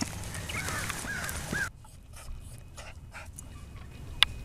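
A poodle whining in three short high whimpers, each rising and falling, then quieter rustling with a single sharp click about four seconds in.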